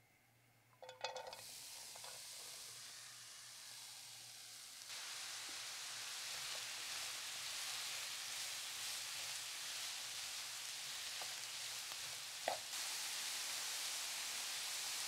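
Chopped red onion and grated carrot land in hot oil in a frying pan with a brief clatter, then sizzle steadily while stirred with a wooden spoon. The sizzle grows louder about five seconds in, and a single sharp tap comes near the end.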